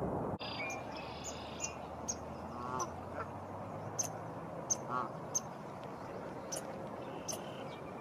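Wind rushing on the microphone cuts off abruptly about half a second in. After it come repeated short, high chirps of small birds and two brief calls about three and five seconds in, which fit Canada geese.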